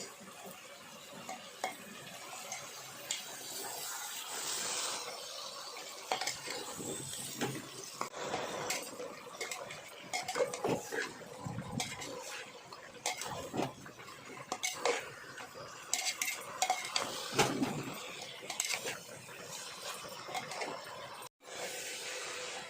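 A spatula stirring and scraping pork and potato pieces in a pressure cooker pot, with irregular metal clinks and scrapes over a light sizzle as the meat is fried in spices.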